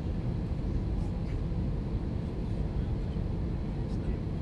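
Steady low rumble of airliner cabin noise inside an Airbus A321-231 on approach with flaps extended: engine and airflow noise heard from a window seat over the wing, with a faint steady hum in it. The engines are IAE V2500s.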